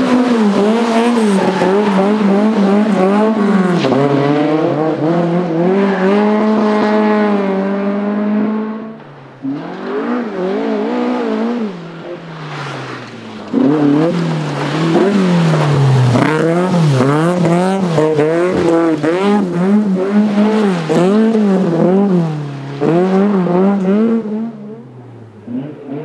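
Toyota Starlet rally car's four-cylinder engine revving hard as it drifts on loose gravel, the revs climbing and falling with throttle and gear changes, over the hiss of thrown gravel. The revs drop away briefly a few times, about nine and twelve seconds in and again near the end.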